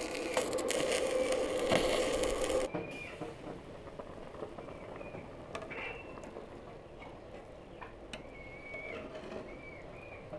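Stick arc welding on a steel frame for the first two to three seconds, a dense hiss that cuts off suddenly. After it, quieter background with short bird chirps and a few faint clicks.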